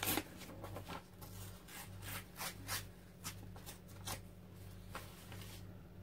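Scraps of old encyclopedia paper being handled by hand: irregular dry rustles and crinkles that stop about five and a half seconds in.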